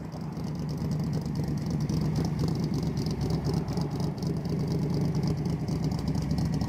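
331-cubic-inch Ford V8 in a Mazda Miata race car idling steadily.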